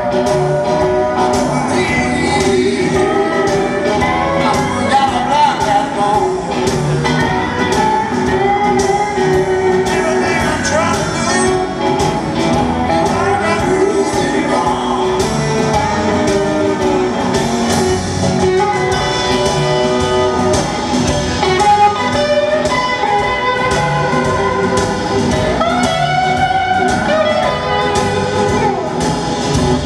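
Live blues-rock band playing in an arena: singing and electric guitar over drums and keyboards, heard from the audience seats.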